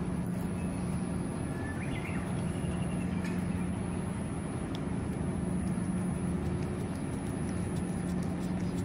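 A cat eating wet food from a metal bowl, with faint ticks of licking and chewing, over a steady low mechanical hum. A short high chirp comes about two seconds in.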